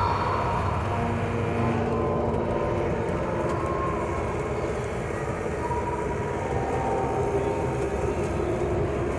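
A car's engine and tyre noise, heard from inside the cabin while driving: a steady rumble.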